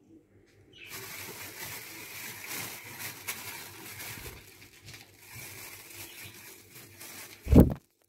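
A rustling, hissing noise that starts about a second in and runs for several seconds, then a loud, dull thump near the end.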